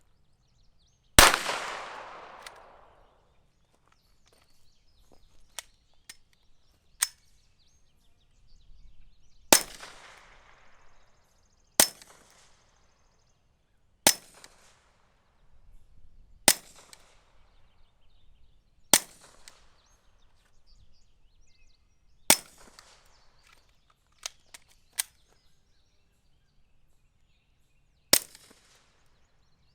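Suppressed .22 LR rimfire pistol shots from a Taurus TX-22: about eight sharp cracks a few seconds apart, each followed by a short echo. The first, about a second in, is the loudest and rings longest; a few fainter ticks fall between the shots.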